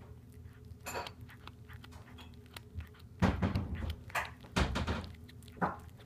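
A cat biting and chewing on a southern flying squirrel, close to the microphone: a few separate loud chewing sounds, one about a second in, a cluster from about three to five seconds in, and one near the end.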